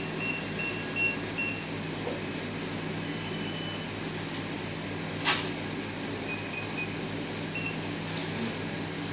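Steady hum of an electric pedestal fan, with short high beeps from a card payment terminal's keypad: a quick run of four or five near the start and a few more later. A single sharp click about five seconds in.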